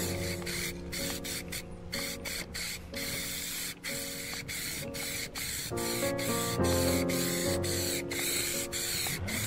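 Aerosol spray can hissing as a coat of semi-gloss clear lacquer is sprayed, the hiss broken by brief pauses between passes, over background music.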